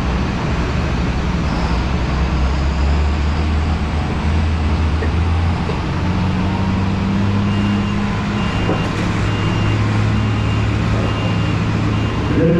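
Large engine running steadily, its pitch shifting slightly about halfway through. A short high beep repeats about twice a second through the second half.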